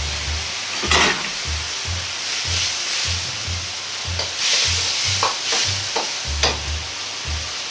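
A metal ladle stirring sauce and garlic chives in a wok, clinking and scraping against the pan: one sharp clink about a second in and a run of them in the second half, over a steady sizzling hiss.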